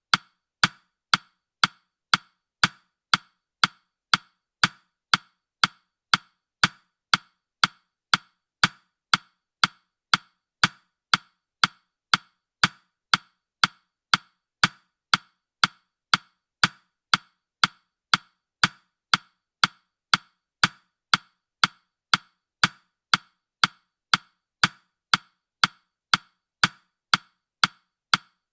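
Ticking-clock sound effect: a steady, even run of sharp ticks, about two a second.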